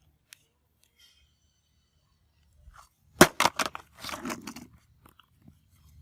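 Handling noise: a quick run of sharp clicks about three seconds in, then a short crunchy rustle.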